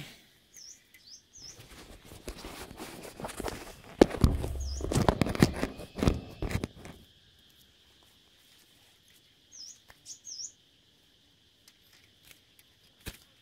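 Short, high chirps from small caged songbirds, scattered through, over a steady high hum. In the middle come a few seconds of rustling and knocking from the wire cages being handled.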